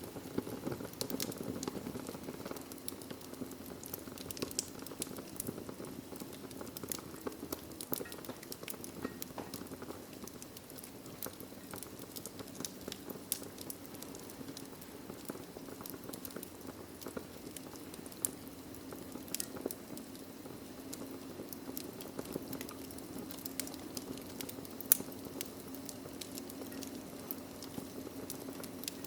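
Wood fire crackling in a fireplace: a steady low rush of flame under constant small, irregular snaps and pops, with one sharper pop near the end.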